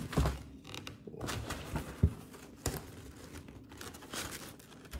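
Cardboard donut box being handled and tilted: papery rustling and scraping with a few short sharp taps, the loudest about two seconds in.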